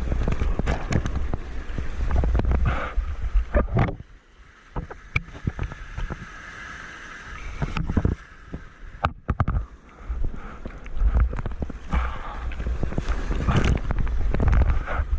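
Wind buffeting the microphone over splashing surf water, a heavy rumble with crackles, dropping quieter for a few seconds in the middle before picking up again.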